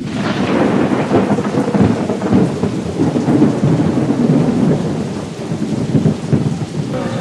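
Thunder rumbling over steady rain, starting abruptly and staying loud throughout.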